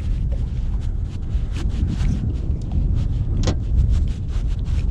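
Wind buffeting the microphone on a small boat, a steady low rumble, with scattered small clicks and taps, the most distinct about three and a half seconds in.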